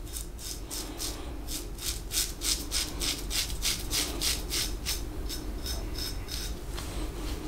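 Focus Tritok Concave aluminium double-edge safety razor, loaded with a Gillette 7 O'Clock Super Platinum blade, cutting lathered beard stubble in quick short upward strokes, about three scratchy rasps a second. This is the first pass of the shave.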